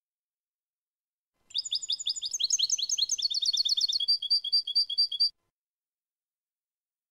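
European goldfinch singing one phrase of 'clean' song (canto limpio): a fast run of high twittering notes, then a string of evenly repeated double notes at about four a second. It starts about a second and a half in and stops sharply.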